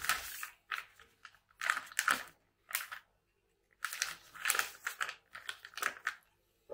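Close-up eating sounds of a man chewing braised oxtail: a series of short, irregular wet chewing and smacking noises.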